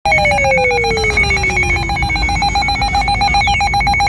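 Weather radio's electronic alert alarm sounding for an incoming flood warning: a harsh, rapidly pulsed beep held on one pitch, with a faint tone sliding down in pitch under it over the first two seconds.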